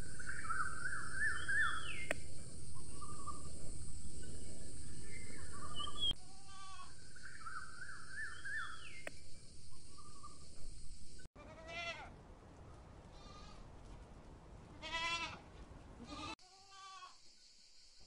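Goats bleating: several short, separate calls spread over the stretch, over steady outdoor background noise that stops abruptly partway through.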